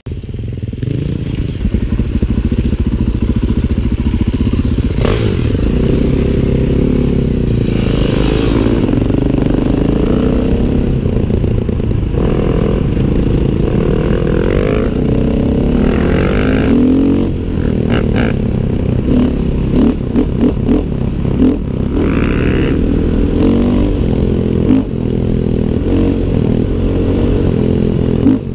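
Dirt bike engine running under way, mostly steady on the open road, with the throttle backing off and opening again in short pulses about two-thirds of the way through.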